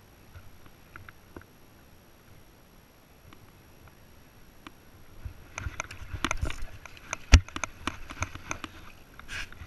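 A hooked largemouth bass splashing at the surface as it is reeled in close, starting about halfway in, with a quick flurry of clicks and one sharp knock. The first half is quiet, with only a few faint ticks.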